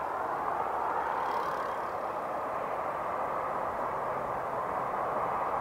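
Airbus A318's twin turbofan engines at takeoff thrust, heard from behind the aircraft as it rolls down the runway: a steady, even rushing jet noise.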